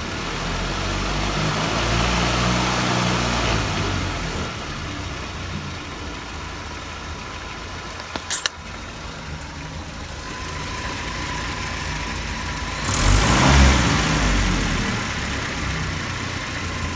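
Land Rover Series 3 2.25-litre petrol four-cylinder engine running, revved by hand at the carburettor throttle linkage. It rises about a second in and falls back around four seconds, there is a sharp click near the middle, and a brief louder rev comes about thirteen seconds in. It picks up without hesitating, though the owner thinks it still runs a bit rich.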